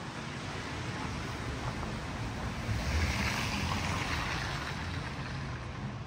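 A vehicle passing on a snow-covered street: a rushing tyre noise over a low engine hum that swells about three seconds in and then eases off.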